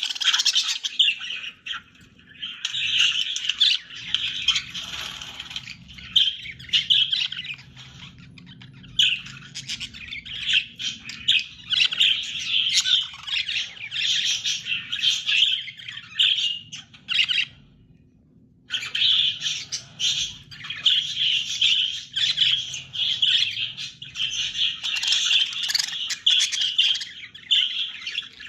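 Budgerigar warbling and chattering: long runs of fast, high chirps that break off briefly about two seconds in and again near the middle.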